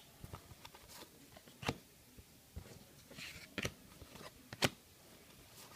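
Trading cards being handled and flipped through by hand: faint sliding of card stock with a few sharp snaps, and a brief rustle just past halfway.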